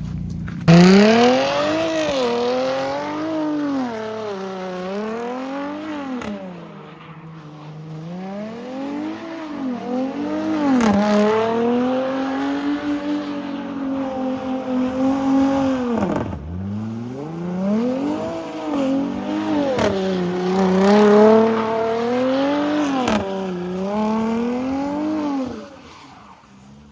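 Car engine revving hard, the revs climbing and falling again every second or two as the car is slid round in circles on snow. The revs drop sharply once about 16 seconds in, and the engine goes quiet near the end.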